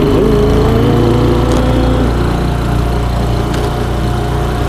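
Small boat's outboard motor running under way, with a higher tone climbing over the first two seconds as it picks up speed, then a steady hum.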